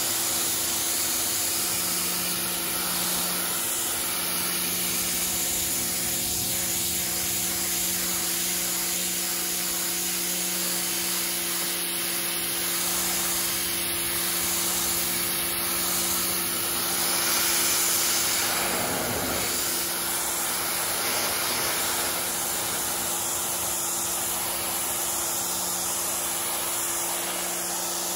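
Small Kärcher 1700 PSI electric pressure washer running steadily, its pump motor humming under the continuous hiss of the water jet spraying across a canoe hull.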